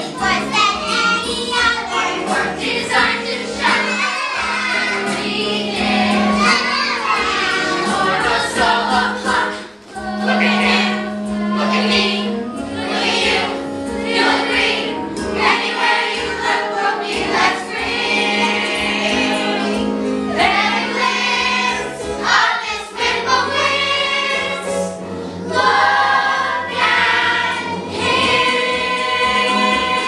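A chorus of children singing a musical-theatre number together over an instrumental accompaniment.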